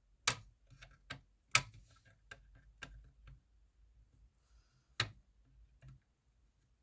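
Scattered sharp plastic clicks and taps from a Simplex 2099 fire alarm pull station being pushed at, with a few louder knocks among fainter ticks. The station does not trip, so no horn sounds.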